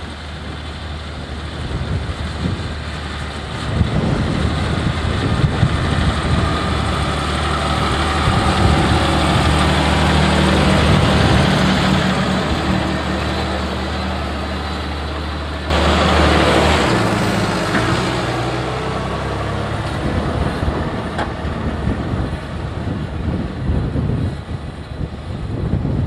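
John Deere 6170R tractor's six-cylinder diesel engine running steadily at low revs, about 1500 rpm, while pulling a five-furrow plough through the soil and coming close. About sixteen seconds in a sudden loud rush of noise cuts in briefly, after which the engine hum sinks under a noisier wash of sound.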